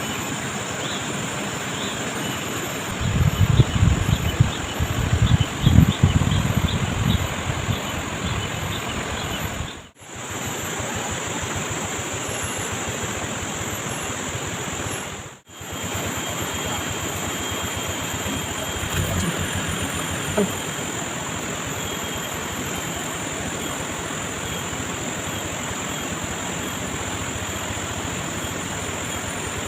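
Steady rush of flowing stream water, with low knocking and thumping from about three to eight seconds in and again briefly later.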